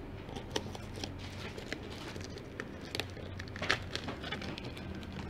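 Clear plastic shrink wrap crinkling and crackling as fingers pick at it and peel it off a cardboard box, in scattered small crackles with one sharper crackle a little over halfway through.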